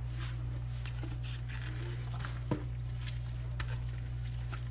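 A spoon working a thick, moist chicken-and-cornbread-dressing mixture, soft scrapes and wet stirring sounds with one sharper knock about halfway through, over a steady low hum.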